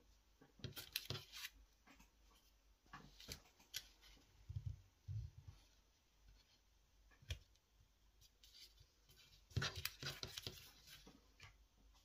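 Faint rustling and crinkling of folded colour paper being handled and pressed, in scattered short clicks and scrapes that come in clusters near the start, in the middle and about ten seconds in.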